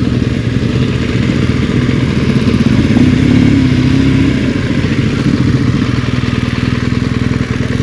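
Dual-sport motorcycle engine running steadily.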